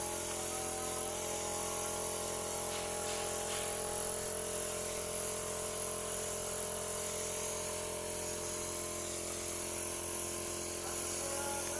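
A small motor-driven machine running steadily with an even whine and hum, with a high hiss above it.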